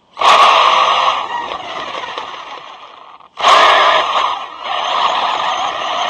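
ZD Racing Pirates 2 brushless RC car driving, heard as a loud rushing noise that starts abruptly about a quarter second in and fades. It cuts out for a moment and starts again just as abruptly about three and a half seconds in.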